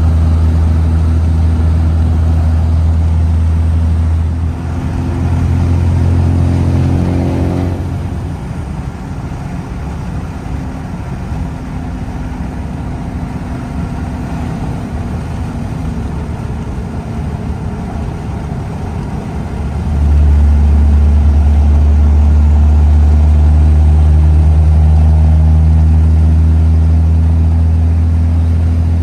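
Cummins inline-six turbodiesel pickup engine heard from inside the cab while driving: a deep, steady drone under load. Its note rises and then drops about eight seconds in, it runs quieter while cruising, and it comes back loud about twenty seconds in.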